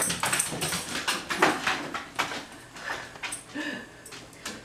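A dog's claws clicking and scrabbling irregularly on a hardwood floor as it jumps and runs. The clicks thin out after about three seconds.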